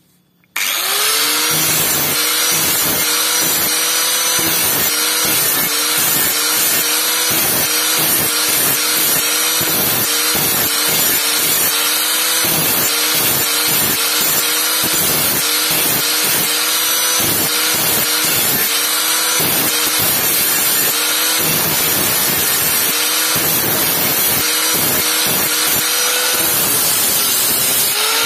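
Angle grinder starting up about half a second in, then running while its abrasive disc grinds rust off the end of a steel pipe; the motor's pitch dips and recovers over and over, about twice a second, as the disc bites into the metal and eases off.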